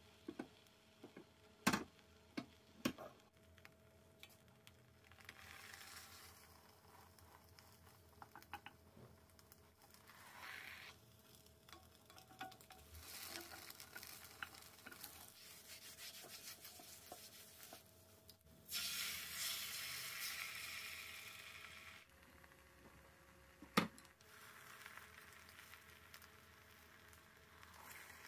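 Beaten egg sizzling faintly in a nonstick pan as a rolled omelette (gyeran-mari) is turned with two wooden spatulas. Sharp taps of the spatulas on the pan come several times in the first three seconds and once near the end. The sizzle swells loudest for about three seconds a little past the middle.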